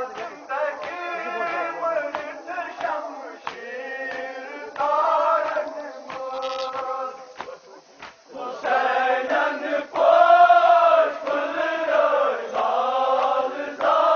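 A group of men chanting a Kashmiri nohay, a Muharram lament, together in phrases with short breaks between them. Sharp slaps, typical of matam chest-beating, are scattered through the chant.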